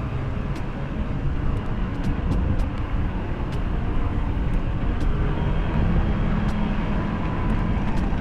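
Steady low rumble of riding along on a bike, with wind buffeting the microphone.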